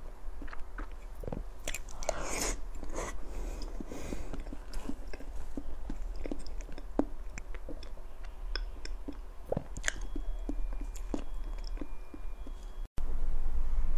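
Close-miked chewing of soft matcha cake: moist mouth sounds with many small clicks and smacks, and a longer, louder bite about two seconds in. The sound breaks off abruptly near the end.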